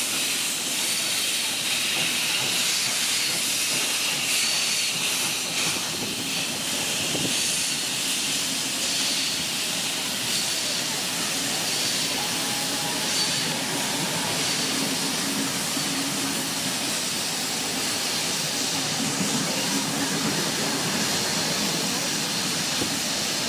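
Steam locomotive 3016 hissing steadily, with steam jetting from its open cylinder drain cocks as it works a passenger train away, the carriages rolling past on the rails.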